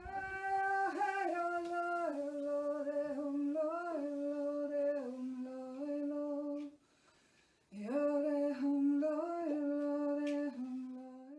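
A single voice humming a slow, wordless melody of long held notes that slide gently between pitches, in two phrases with a short break about seven seconds in.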